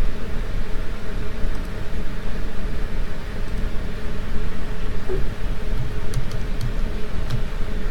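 Steady background hum and hiss with a low rumble, and a few faint clicks about six to seven seconds in.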